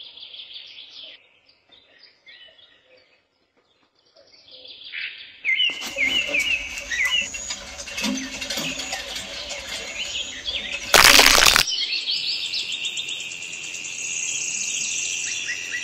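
Songbirds chirping and tweeting, faint and sparse at first, then busier and louder from about six seconds in. A short, loud rushing burst comes about eleven seconds in, and after it a steady high tone continues under the chirps.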